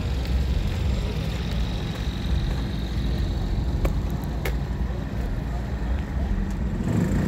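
Steady low rumble of outdoor background noise, with a couple of faint clicks about four seconds in.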